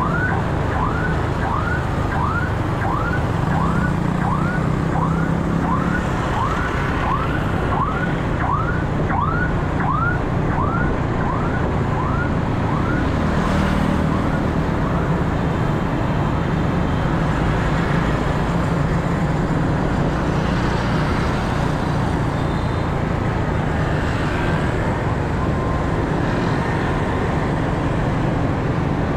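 Steady wind and road noise from riding a scooter in traffic. Over it an emergency-vehicle siren yelps in quick sweeps about twice a second for the first dozen seconds, then fades away.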